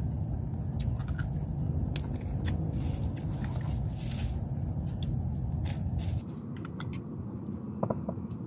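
Small scattered clicks and crackles of people eating with their hands and handling a plastic bag of rice, over a steady low rumble that drops off abruptly about six seconds in.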